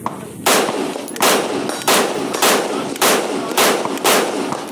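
CZ Bren 2 Ms rifle in 5.56 mm firing seven rapid semi-automatic shots, about one every 0.6 seconds, each shot followed by a brief ringing tail.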